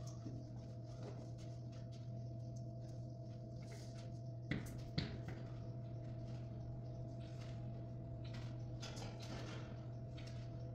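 Steady electrical hum with a fainter higher tone above it. About halfway through come two sharp clicks roughly half a second apart, with faint shuffling and rustling around them.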